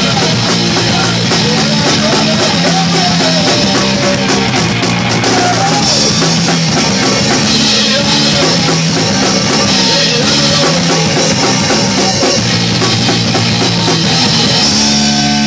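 Rock band playing live and loud, the drum kit to the fore with a steady wash of cymbals over sustained low bass and guitar notes. The cymbals stop right at the end.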